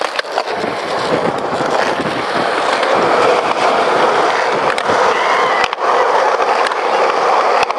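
Skateboard wheels rolling on a paved path, a loud steady rolling rumble with a few light clicks from joints in the pavement.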